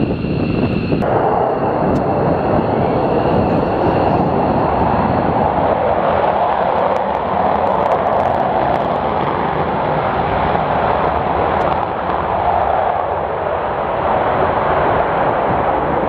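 Twin-engine F-15 fighter jet at high power: loud, continuous jet noise. A high whine fades out over the first few seconds.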